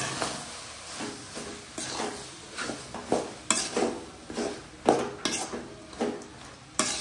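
Steel spoon scraping and knocking against a metal kadai as crumbled boiled goat blood is stirred into frying intestines, shallots and curry leaves, with a light sizzle underneath. The strokes come irregularly, about two a second.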